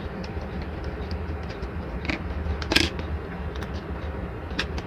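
Steady low hum with a few light clicks and crackles from handling small plastic model-car parts and a sticker sheet in a plastic packet, the sharpest crackle a little before the middle.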